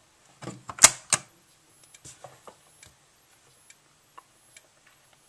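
Gamewell Sentry fire alarm pull station being pulled, a few sharp clacks in the first second with the loudest about a second in. After that come faint, irregular ticks and a faint very high whine, from the Notifier NWS-24 strobe now activated and flashing.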